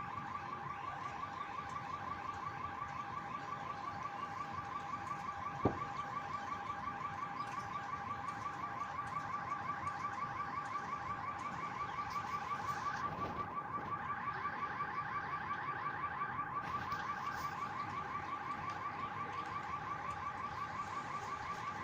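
An electronic alarm sounding continuously with a fast, unchanging warble. A single sharp knock is heard about six seconds in.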